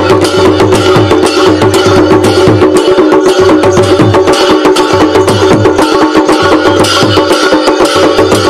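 Loud folk-style music played over a PA system, driven by a fast, steady drum beat under a held melody.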